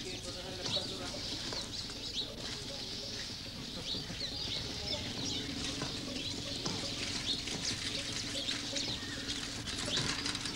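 Outdoor street ambience with many small birds chirping continuously, and a low steady hum that comes in about halfway.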